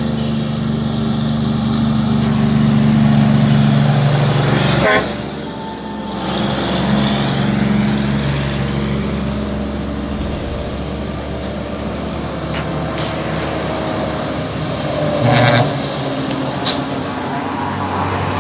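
Heavy diesel truck engines working hard as trucks climb past close by. The first engine swells to its loudest about four seconds in, and the sound changes abruptly about five seconds in. Steadier engine and road noise from more trucks follows, with a brief louder burst near the end.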